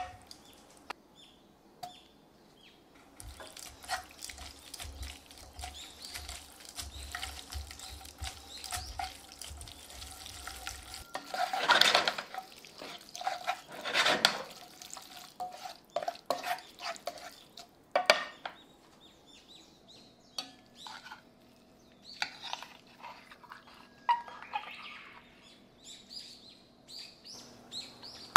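Metal tongs tossing spaghetti in garlic oil in a metal frying pan: wet stirring sounds with scattered clicks of the tongs against the pan, loudest twice around twelve and fourteen seconds in. Near the end, lighter clinks of metal utensils.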